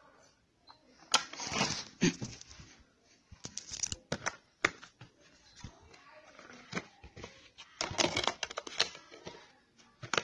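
Hands handling a DVD disc and its plastic keep case: bunches of sharp plastic clicks, taps and short rustling scrapes, coming in three spells.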